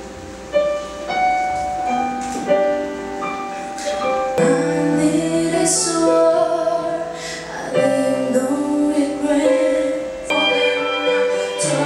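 A woman singing live into a microphone over keyboard accompaniment. About four seconds in, the backing fills out with low bass notes.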